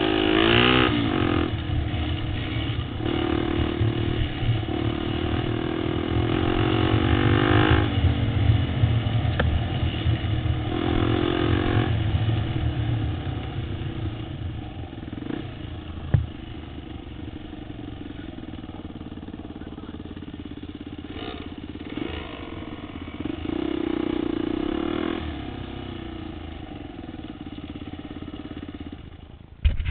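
Dirt bike engine under way, revving up and down with the throttle, with a long rising rev about six to eight seconds in. It settles to a quieter, lower run about halfway through, where one sharp knock is heard.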